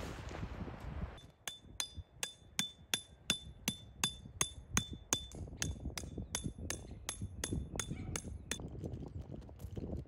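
Hammer driving a metal tent peg into gravel: a steady run of sharp, ringing metal-on-metal strikes, about three a second, starting about a second in and stopping shortly before the end. Wind noise on the microphone before the hammering starts.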